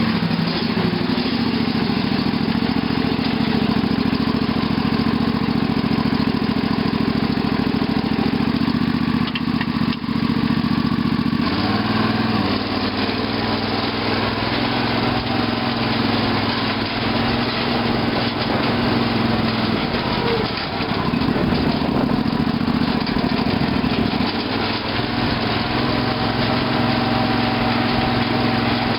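Craftsman lawn tractor's 18.5 hp Briggs & Stratton Intek engine running steadily just after a cold start. Its note changes about eleven seconds in and shifts again twice later.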